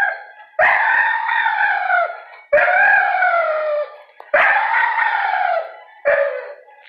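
A dog howling in four long drawn-out calls, each rising and then falling in pitch, the last one shorter.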